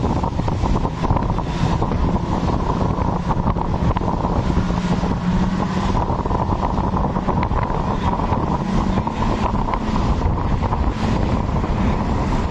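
Twin Yamaha outboard motors running steadily at speed, a constant drone over the rush of the wake. Heavy wind buffets the microphone.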